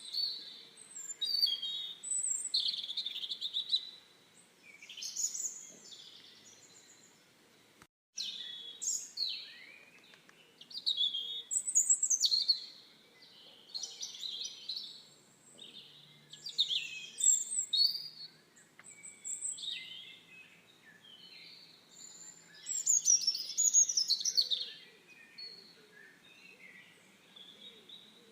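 Wild songbirds singing in a string of quick, chirping phrases with short pauses between them, with a brief dropout about eight seconds in.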